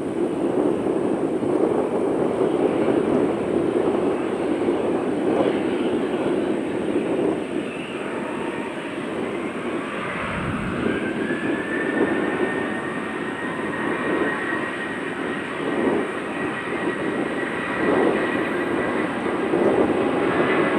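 Jet airliner's engines running steadily, with a whine that rises about halfway through and then holds at one pitch.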